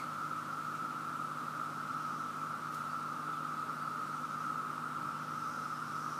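Chorus of cicadas: a steady, continuous high drone of many insects singing at once, even in level throughout.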